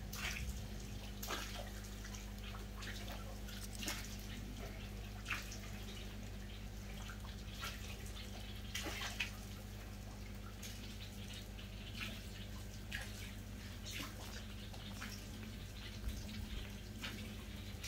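Small, irregular drips and plops on a pond surface as catfish come up to take dried biofloc scattered on the water, over a steady low hum.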